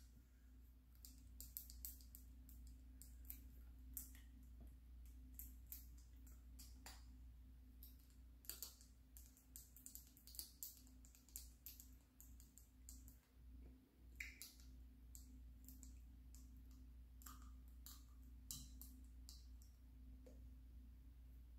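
Near silence: faint, irregular small clicks, sometimes several in quick succession, over a low steady hum.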